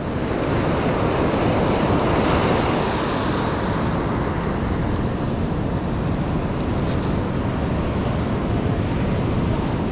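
Ocean surf washing onto the beach in a steady rush, with wind on the microphone.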